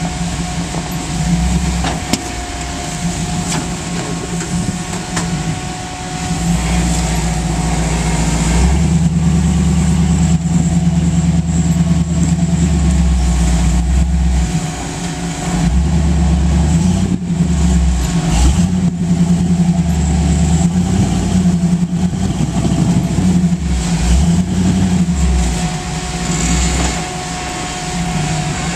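Rock-crawling Jeep CJ's engine running under load, revving up and easing off several times as the Jeep climbs over boulders.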